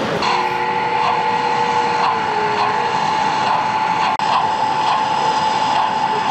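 Gauge 1 model locomotive running, a steady high whine that swells about twice a second. A second, lower tone runs under it for the first few seconds and dips in pitch about two seconds in.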